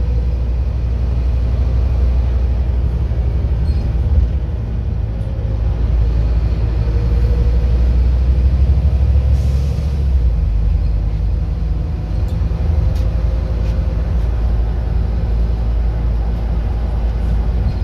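Scania N230UD double-decker bus's five-cylinder diesel engine and drivetrain running steadily under way, heard inside from the upper deck as a deep rumble. A little past halfway a short hiss of air sounds and the rumble eases.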